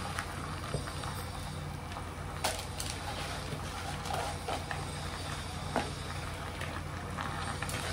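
Soaked rice being added to a cooking pot of chicken masala and worked in: scattered short clinks and scrapes against the pot over a steady low hum.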